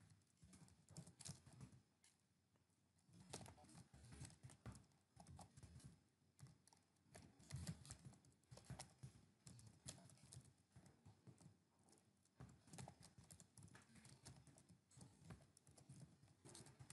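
Faint computer keyboard typing: quick, irregular key clicks with a couple of short pauses.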